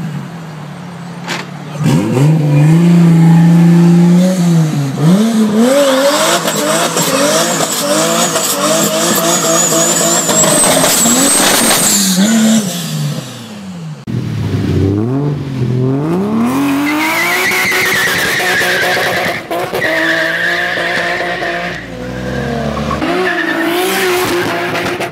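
Jeep Wrangler with a swapped-in Toyota 2JZ inline-six, held at high revs and then revved up and down quickly during a burnout, the rear tyres spinning in smoke, with a rising high whine near the end of it. After a cut about 14 seconds in, another car's engine revs hard several times with a high squeal over it.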